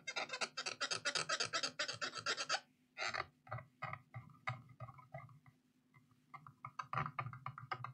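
Cotton swab scrubbing a laptop logic board to clean off liquid-damage residue. The scratchy strokes come fast and close together for about two and a half seconds, then slower and spaced apart, over a faint low hum.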